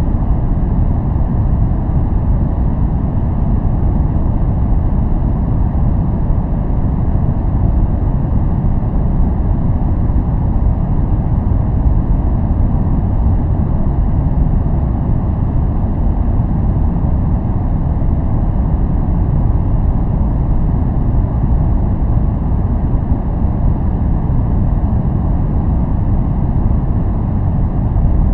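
Steady, deep noise used for focus and relaxation: an even hush with most of its weight in the low end and almost nothing high, unchanging throughout.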